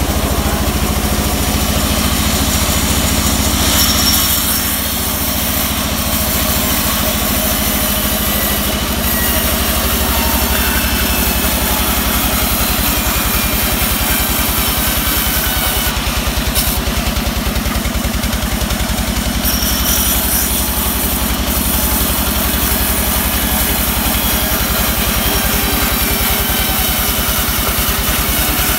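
Vertical band sawmill running steadily while a teak log is sawn lengthwise into boards: an even machine drone with a low, regular rhythm, and a few short louder hisses as the blade cuts.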